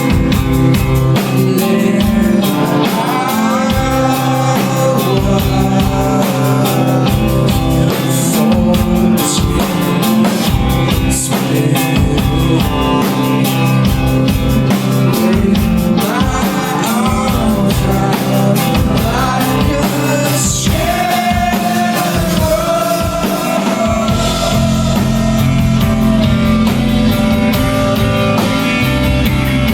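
Emo rock band playing live, with electric guitars, bass and drum kit, and a singer's voice coming in over the band at times.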